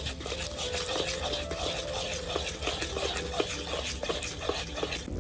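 Metal spatula scraping and tapping against a large iron wok as it stirs a bubbling, sizzling oily sauce. There are several quick strokes a second, each with a short metallic ring.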